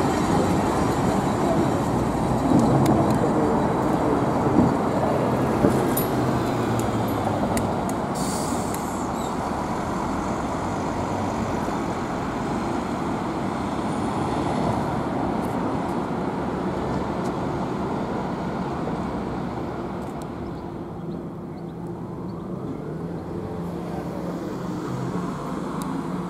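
Old electric freight tram cars towing a Ganz underground train along tram tracks: a steady rumble of wheels and running gear, loudest at the start as a car passes close and fading later, with a short hiss about eight seconds in.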